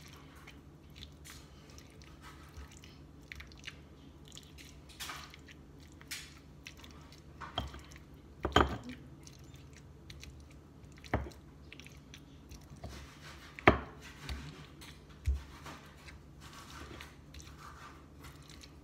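Avocado and chopped tomato being squeezed and mashed by hand in a stone mortar bowl: quiet wet squishing broken by scattered sharp clicks and knocks, the loudest about 8½ and 14 seconds in.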